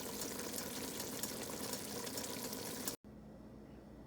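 Cabbage simmering in chicken broth in a pot: a steady bubbling sizzle with fine crackles, cut off abruptly about three seconds in, leaving faint room tone.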